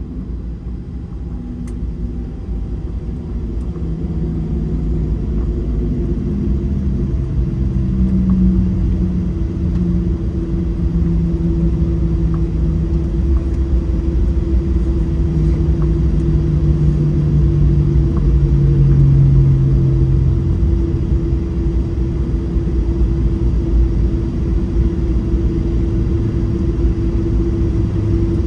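Cabin noise of a Boeing 737-800 taxiing after landing: a steady low rumble of its CFM56-7B jet engines and rolling wheels, with shifting low hums. It grows louder over the first several seconds, then holds steady.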